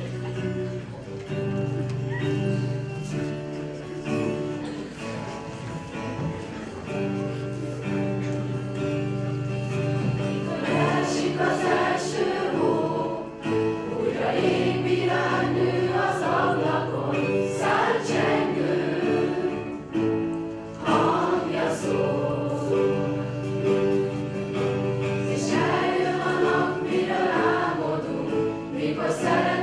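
A mixed group of young voices singing a Christmas carol together over a steady instrumental accompaniment, growing fuller and louder about ten seconds in.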